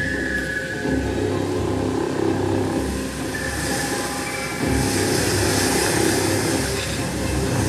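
Low rumbling drone with long sustained tones from the fountain show's sound system, joined by a rising hiss about three seconds in.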